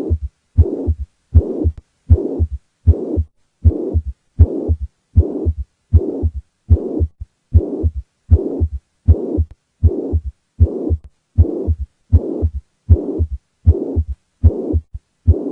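Heartbeat with the blowing systolic murmur of mitral regurgitation: each beat is a low thud followed by a whooshing noise, repeating steadily a little faster than once a second.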